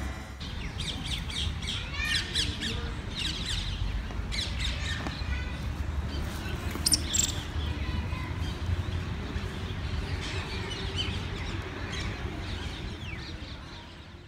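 Outdoor ambience of birds chirping and calling in many short, quick calls over a steady low rumble, fading out near the end.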